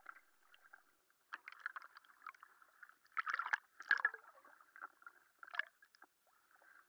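Faint underwater bubbling and crackling of water, in irregular short bursts that are loudest about three to four seconds in.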